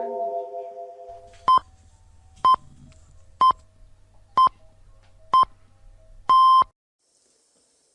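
Electronic countdown beeps at one pitch: five short beeps about a second apart, then a longer sixth beep, in the pattern of radio time-signal pips. The tail of music fades out before the first beep.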